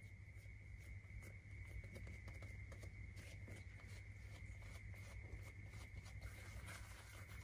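Faint soft rubbing and light irregular taps of hands cupping and rounding a ball of bread dough on a silicone baking mat, over a steady low hum and a faint steady high tone.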